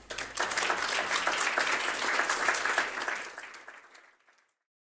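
Audience applauding, a dense patter of many hands clapping that starts just after the lecture's last words and fades away about four seconds in.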